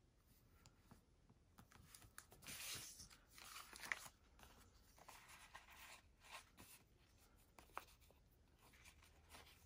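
Faint paper rustling as planner pages are turned and a sheet of stickers is handled, loudest for a couple of seconds in the middle with a sharp tick near its end, then light scattered ticks of paper and stickers being handled.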